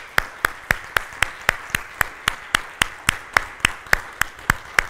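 Congregation applauding, with one close, loud clapper keeping a steady beat of about four claps a second over the general clapping.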